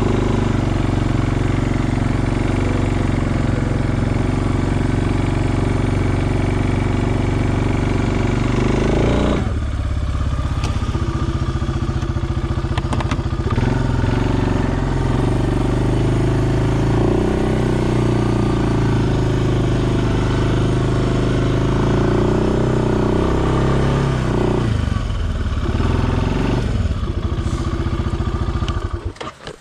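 Suzuki King Quad 400 ASi ATV engine running steadily under load while pushing snow with a front plow blade, its note changing about ten seconds in and dipping twice near the end before the engine cuts off.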